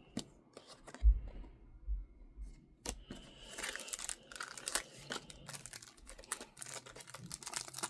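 A small card booster pack's wrapper being torn open and crinkled in the hands, a dense crackling from about three seconds in. Before it, a few light clicks and a dull bump about a second in.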